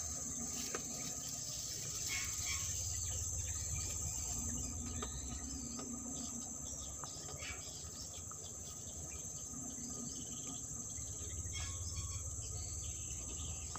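Steady high-pitched chorus of insects, such as crickets, droning without a break, over a low rumble.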